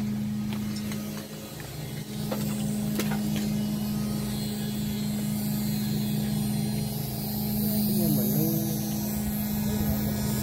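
Electric paddlewheel aerators running on a shrimp pond: a steady low hum over a constant wash of churning water. A few faint knocks come in the first few seconds, and a brief faint voice about eight seconds in.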